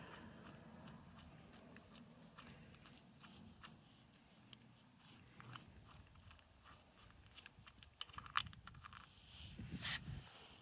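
Faint scattered metal clicks and scrapes of a 5 mm Allen wrench and the oil filter cover screws being handled and backed out of a Yamaha V Star 250's engine, with a few sharper clicks near the end.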